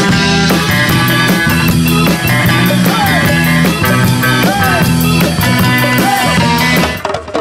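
Background rock song with a steady beat and singing; it cuts off near the end.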